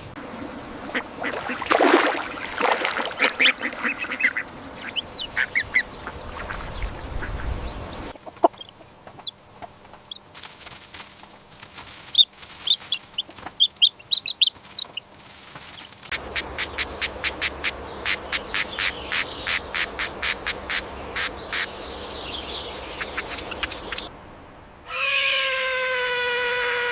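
Ducks quacking in several short clips, at times in quick runs of calls. Near the end a long, drawn-out call with a slightly falling pitch begins.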